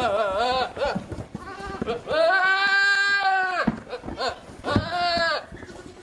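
Goat bleating three times: a wavering bleat at the start, a long steady bleat about two seconds in, and a shorter one near the end.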